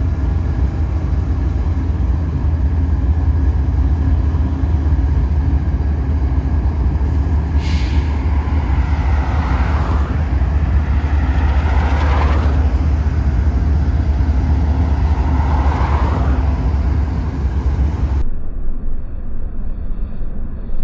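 Union Pacific diesel locomotives passing close by: a steady, deep engine rumble, with a few sweeping higher squeals and a brief hiss in the middle.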